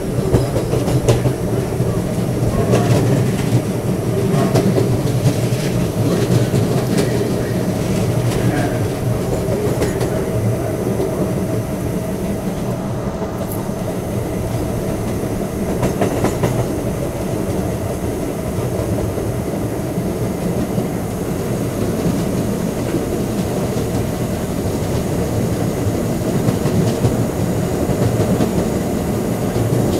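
R32 subway car running along the track: a steady rumble and hum, with the wheels clicking over rail joints, most often in the first ten seconds.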